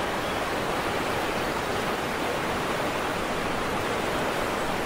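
Running water rushing steadily, an even unbroken noise with no rises or pauses.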